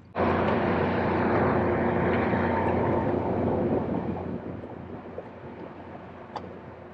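A boat motor running, loud for the first few seconds and then fading away, with a short click near the end.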